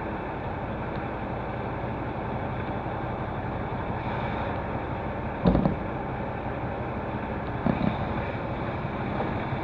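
Semi-truck's diesel engine running steadily, heard from inside the cab, with a short loud thump about halfway through and two smaller ones near the end.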